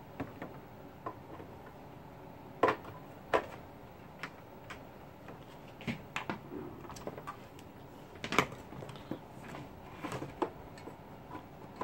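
Scattered clicks and knocks of cables and plugs being handled and pushed into the jack sockets of a Behringer PMP4000 powered mixer. The three loudest knocks come a little under three seconds in, at about three and a half seconds, and at about eight and a half seconds.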